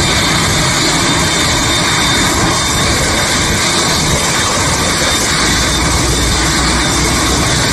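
Jet engines of a Boeing 787 airliner running loud and steady, a dense even noise with a faint high whine, the deep rumble growing about five seconds in.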